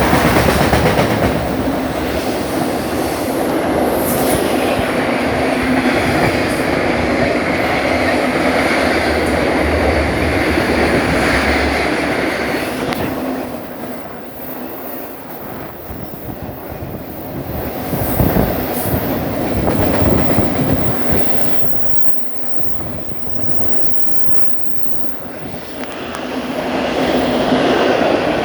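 A train's cars rolling past close by, their wheels clattering over the rail joints. The noise drops away about halfway through and again later, then swells back near the end.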